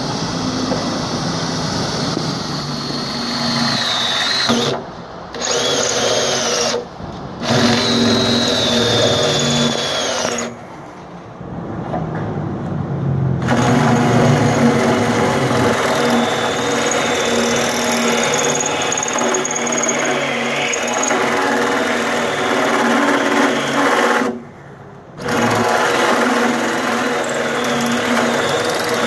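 Cordless drill driving a hole saw through a stainless steel sink deck, the motor running under load with a high whine from the cutter biting the steel that wavers in pitch. The drill stops briefly several times, with a longer pause of two or three seconds near the middle.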